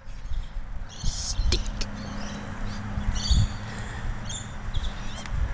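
Birds chirping in repeated short, high calls, over a low rumble.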